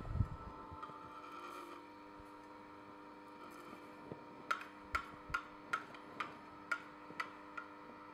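Sana by Omega EUJ-707 auger juicer with its oil extractor attachment running with a low steady hum as flax seeds are fed in. There is a low thump at the start, and from about halfway a run of sharp light clicks, roughly two a second.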